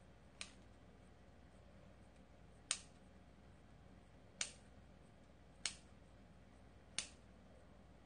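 Five short, sharp clicks of eating at close range, spaced one to two seconds apart, with near silence between them.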